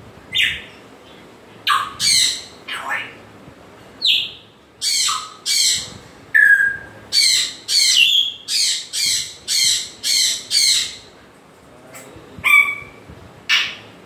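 African grey parrot squawking: a string of short, harsh calls. About six seconds in, one ends in a whistle falling in pitch, followed by a fast run of about eight calls, roughly two a second.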